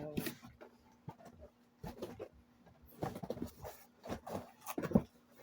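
Packaging being handled and rummaged through while unpacking a box: scattered rustles and light knocks, coming in short clusters about two, three and five seconds in.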